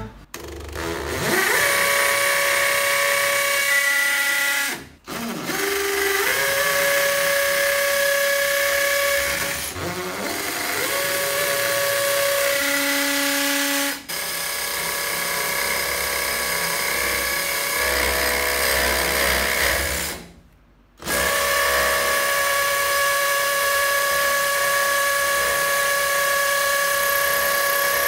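Cordless drill with a 6 mm bit boring holes into a masonry wall for S6 wall plugs. The motor runs in five spells of several seconds each, with short stops between.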